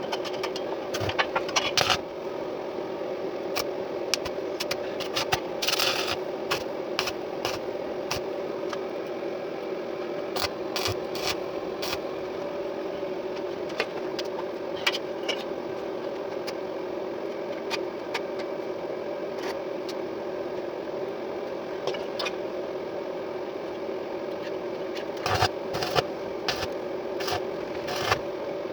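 Electric motor running steadily, with many short clicks and scraping sounds over it, thickest near the start and again near the end.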